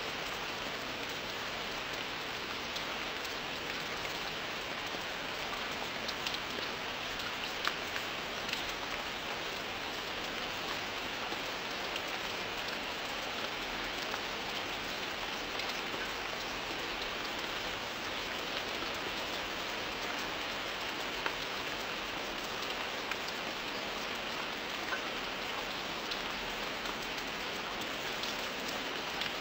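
Steady rain falling: an even hiss of rain with scattered sharper drop clicks.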